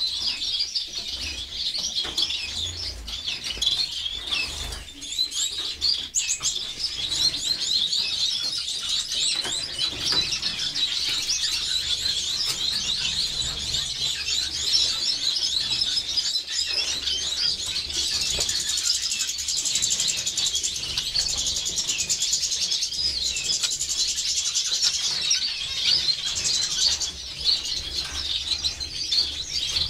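Many caged finches chirping and twittering together, a dense overlapping chatter of short high calls with no let-up.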